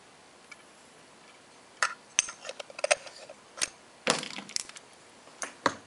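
Metal pocket watches clinking and knocking as they are handled, put down and picked up: a run of sharp, irregular clicks that starts about two seconds in.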